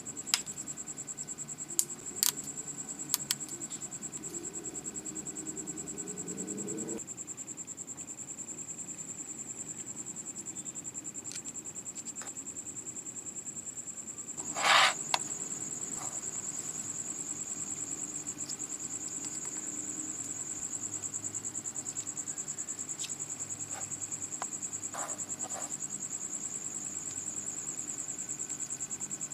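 A steady high-pitched insect trill. Under it, a low sound rises in pitch and stops abruptly about seven seconds in. There are a few sharp clicks in the first few seconds, and a short, loud rush of noise about halfway through.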